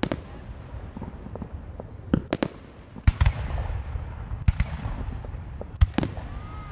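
Aerial fireworks shells bursting: a string of sharp bangs, several in quick pairs, over a continuous low rumble of further bursts.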